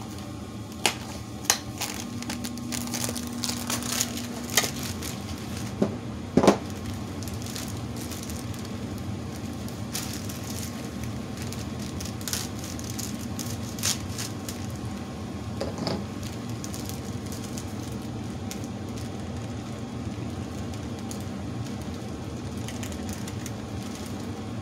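Home furnace running steadily in the background, with scattered clicks and knocks of things being handled on a table; the loudest knock comes about six and a half seconds in.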